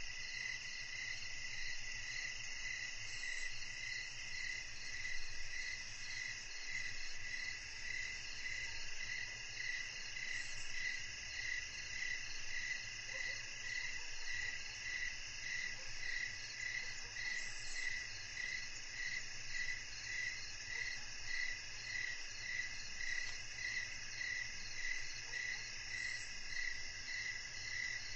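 Evening chorus of insects, crickets among them, trilling steadily. Several high-pitched calls overlap, one of them pulsing evenly about once or twice a second.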